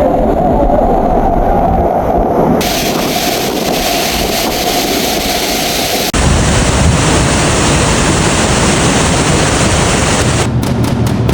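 Loud, steady rushing roar of a large waterfall's falling water. The tone of the roar changes abruptly twice, about two and a half and six seconds in.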